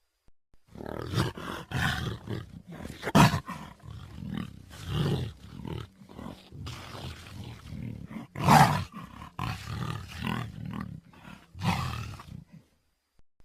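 Cougar (puma) calling in a run of irregular calls of varying length, the two loudest about three seconds in and about eight and a half seconds in.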